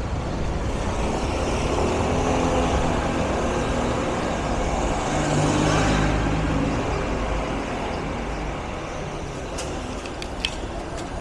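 Street traffic with a motor vehicle's engine passing close by. It grows to its loudest about six seconds in, then fades. A few sharp clicks come near the end.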